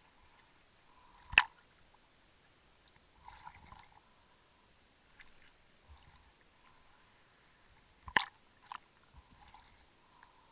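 Handling noise from a waterproof camera moving at the water's surface: a few sharp knocks, the loudest about a second in and two more near the end, with softer scraping and sloshing between.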